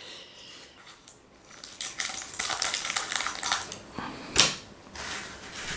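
Scissors cutting open a plastic trading-card pack wrapper, with rustling of the wrapper and a run of small irregular clicks that starts about two seconds in; one sharper click comes a little past four seconds in.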